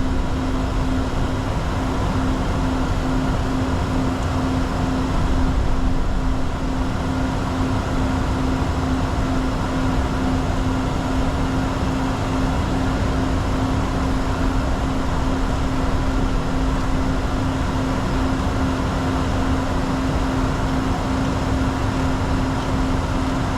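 Steady cockpit noise of a Bombardier Challenger 604 in flight: airflow and its GE CF34 turbofans running, with a steady low hum throughout.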